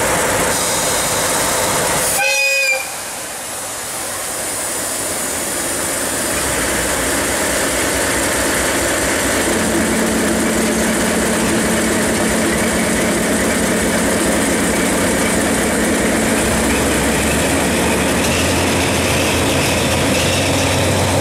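DE10 diesel-hydraulic locomotive gives a short blast on its whistle about two seconds in, then its V12 diesel engine settles into a steady loud drone as it works the train away from the platform.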